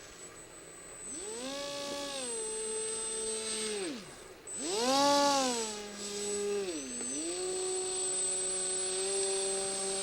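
Wild Hawk RC plane's electric motor and propeller whining as the throttle is worked. It rises about a second in and holds, drops away around four seconds, then surges back, loudest about five seconds in. It dips briefly around seven seconds, holds steady again, and starts to wind down right at the end.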